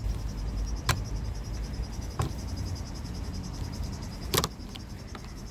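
Three sharp plastic clicks, the loudest near the end, as an old wiper blade is worked off the J hook of a pickup's wiper arm. Crickets chirr steadily behind, with a low rumble.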